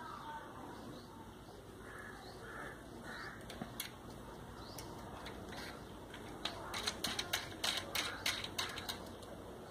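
Small sharp clicks and ticks of a drill bit being fitted into the collet of an Agni A1537 rotary tool while it is switched off. There are a few single clicks, then a quick run of ticks about two-thirds of the way through.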